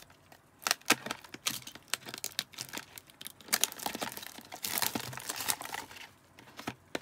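Packaging crinkling and tearing in irregular bursts as hands handle and open a sealed trading-card box, with a few sharp snaps about a second in and the busiest crackling past the middle.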